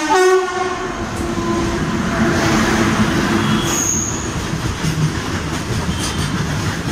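WAG-9 electric locomotive hauling a covered-wagon (BCNA) freight train past close by. Its horn blasts loudly as it arrives and trails off over the first few seconds, then the wagons rumble and clatter steadily over the rails.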